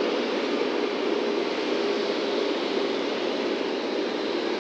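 Boeing 747-8F's four GEnx-2B turbofans running at taxi power as the freighter taxis past: a steady, even jet rush with a faint high whine.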